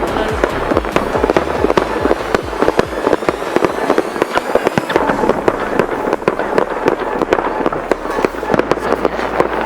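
Fireworks going off in quick succession: many sharp bangs and crackles a second, with deep thumps coming regularly in the first few seconds.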